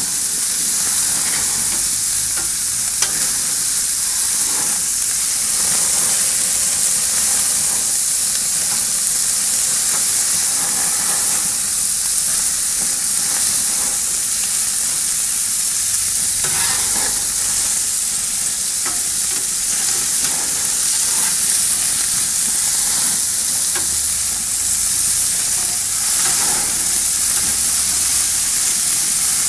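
Köfte and lamb sausages sizzling on a grill grate over open flames: a steady hiss with a few soft crackles.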